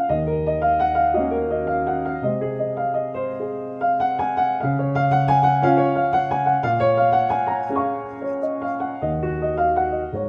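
Background music: a piano or electric-piano melody over held bass notes.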